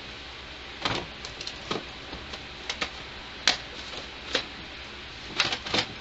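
Plastic video game cases clacking and knocking against each other as they are handled and shifted on a stacked shelf: a string of irregular sharp clicks, the loudest about three and a half seconds in.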